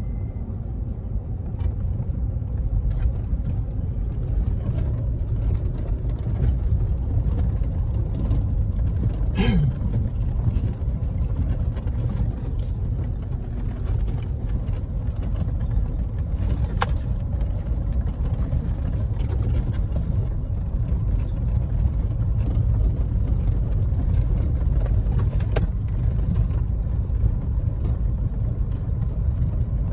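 A car being driven: a steady low rumble of engine and road noise, with a few sharp clicks scattered through it.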